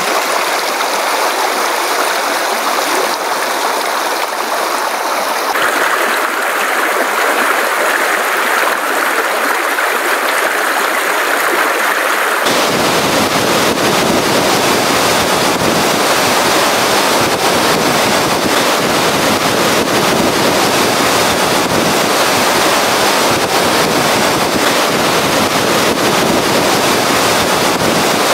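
Small mountain stream (a ru) rushing and splashing over stones, then, about halfway through, the steady, deeper rush of a large waterfall.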